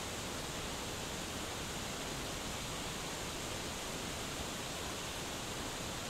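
Waterfall pouring down a rock face: a steady, unchanging rush of falling water.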